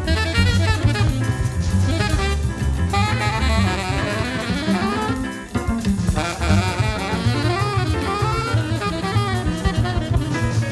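Jazz quartet recording: alto saxophone playing fast, winding, bending lines over busy drum kit, with a bass line underneath. The music dips briefly about halfway through and then carries on.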